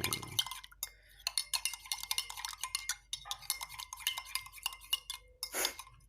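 A spoon stirring liquid in a small glass, clinking and tapping against the sides in quick, irregular strokes, with one louder scrape near the end.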